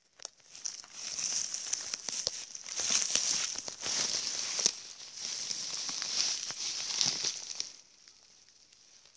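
Close rustling and crackling with many small clicks as the camera is moved through low shrubs and leaves. It stops suddenly about three-quarters of the way in.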